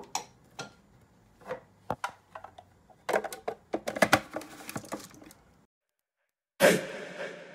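Hard plastic clicks and clatter as tomatoes drop into a food chopper bowl and its lid is fitted, then, after a brief silence, the chopper's electric motor starts suddenly near the end with a steady whirr that fades, chopping onions, chilies and tomatoes.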